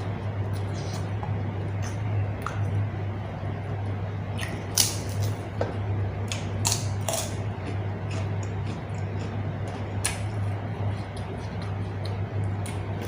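Close-up mukbang eating sounds: chewing and mouth smacks on rice with sambal and raw vegetables, heard as scattered irregular clicks and squelches. A steady low hum runs underneath.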